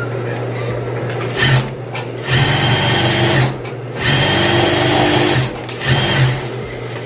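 Juki single-needle industrial lockstitch sewing machine stitching fabric in four short runs, starting and stopping with the pedal, with a steady hum between runs. It runs without cutting out under load: the stalling fault, blamed on a weak supply through an extension cord, is cured.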